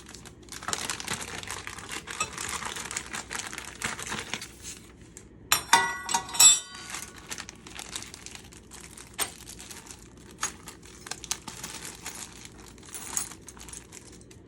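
Plastic packaging crinkling as the pan's handle and hardware are unwrapped, with a loud metallic clink and brief ringing about six seconds in, then scattered light clicks and rustles.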